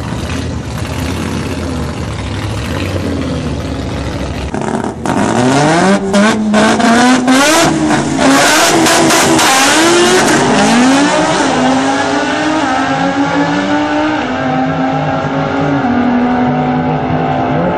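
Rotary-engined Mazda RX3 drag car revving hard and accelerating down the strip, its engine pitch climbing and dropping back in steps through the gears. It starts about four and a half seconds in, after a steady low rumble.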